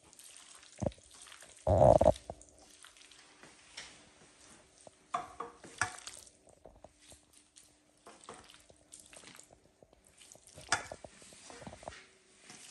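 Gloved hands squishing and scooping sliced plums in a stainless steel mixing bowl and moving handfuls into a glass bowl: wet squelching and scattered soft knocks, with one louder thump about two seconds in. A faint steady hum sits underneath.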